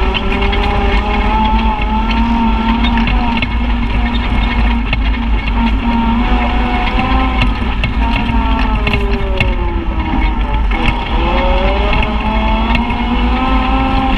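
Side-by-side UTV engine running under way on a dirt trail, its pitch rising and falling with the throttle. It eases off about nine seconds in and picks up again a couple of seconds later, over a steady low rumble with small knocks and rattles.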